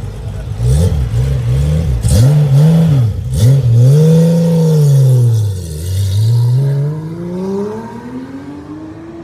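Porsche 911SC's air-cooled flat-six revving in several quick blips, then a longer pull. About six seconds in the pitch drops sharply, then climbs again as the engine note fades with the car accelerating away.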